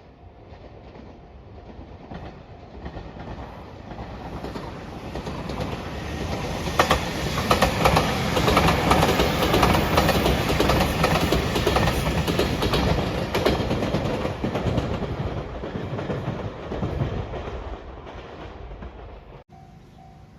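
A train passing at speed: its rumble builds, then comes a rapid clatter of wheels over the rail joints at its loudest, and it fades away. The sound cuts off abruptly near the end.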